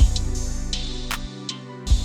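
Background music with a steady beat: drum hits and cymbals over a sustained bass line that drops out briefly just before a hit near the end.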